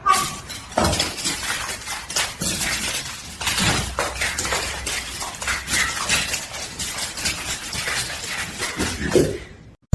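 Irregular clattering and knocking of hard objects, many short sharp hits over a noisy background, stopping abruptly near the end.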